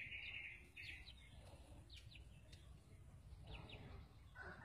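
Faint, scattered bird chirps, short and high, over quiet outdoor ambience with a low rumble underneath.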